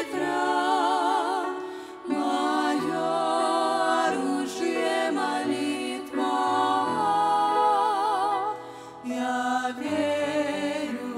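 Two women singing a slow Russian-language worship song with grand piano accompaniment. They hold long notes with wide vibrato, in phrases broken by short pauses about 2, 7 and 9 seconds in.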